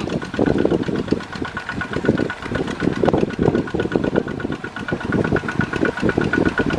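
Two-wheel walking tractor's single-cylinder diesel engine chugging under heavy load as its lugged wheels churn through deep mud, with a rapid, even knock of firing strokes.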